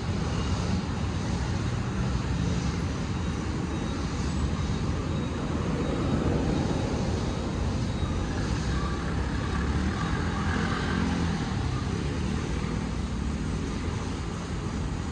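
Steady rumble of city road traffic on a busy avenue, with engines and tyres blending into one continuous noise.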